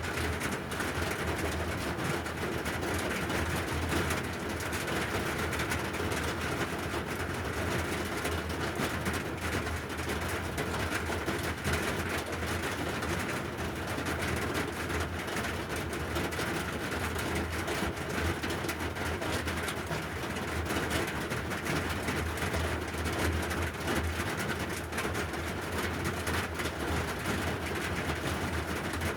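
Steady rain falling: a continuous, even hiss with no breaks or distinct drops standing out.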